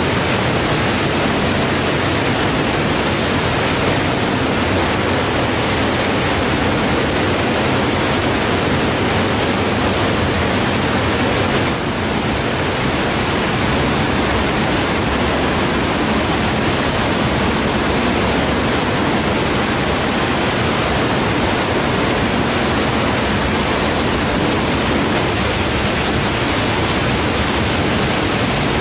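Steady, loud rush of falling and running water, a continuous even noise with no other distinct sounds.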